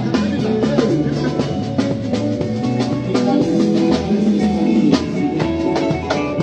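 Live band playing a groove at a sound check: a steady drum beat with a bass line and guitar or keyboard notes over it.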